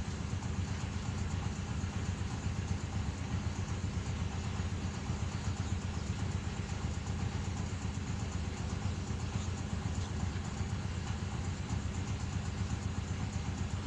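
An engine running steadily at idle, a low even hum with no changes in speed.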